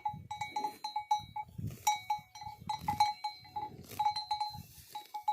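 A bell hung on a grazing buffalo clanking irregularly as the animal walks, a few strikes a second, each with a short ring. Low, uneven thuds run underneath.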